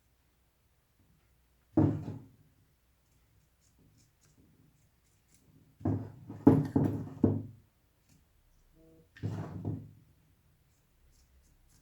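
Carving tool biting into a block of wood in short strokes: a single cut, then a quick run of about five cuts a few seconds later, then one more.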